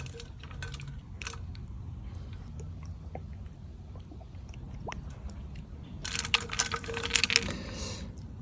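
Light metallic clinks and taps against a stainless steel bowl holding noodles and ice cubes, scattered at first, then a quick cluster of clinks about six seconds in, over a steady low background rumble.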